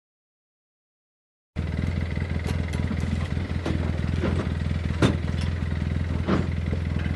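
Dead silence for about the first second and a half, then a Polaris Ranger 6x6 utility vehicle's engine idling steadily with a faint high whine. A few light clicks and clanks come through it.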